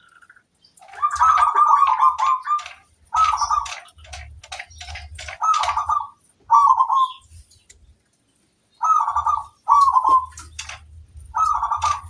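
Zebra dove (perkutut) cooing: a series of short, loud phrases, some with a fast rolling trill, repeated every second or two with short pauses between.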